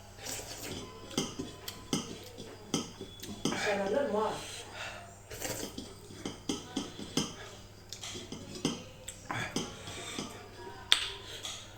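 Eating at a bowl: utensils clicking and tapping against the dish in a long run of short, irregular clicks, with a brief vocal sound about four seconds in.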